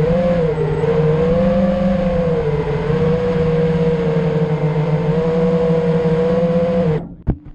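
FPV quadcopter's brushless motors and propellers whining steadily, the pitch wavering slightly with throttle. It cuts off abruptly about seven seconds in, followed by a short click.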